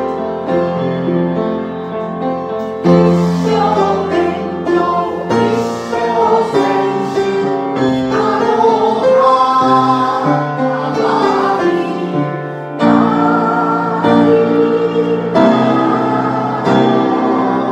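A group of voices singing a song together to instrumental accompaniment, in phrases with brief breaks between them.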